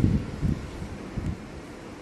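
Wind buffeting the microphone in irregular low gusts, which ease off over the second half.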